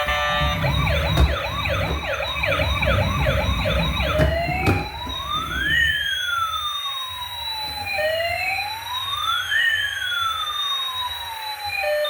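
Electronic siren of a toy emergency vehicle: a fast yelp warble for about four seconds, with a low rumble under it, then switching to a slow wail that rises and falls twice.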